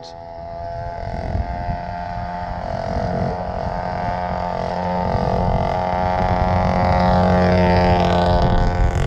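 Moped's small two-stroke engine running at a steady pitch and getting steadily louder as it rides closer, with part of its exhaust removed. Wind buffets the microphone underneath.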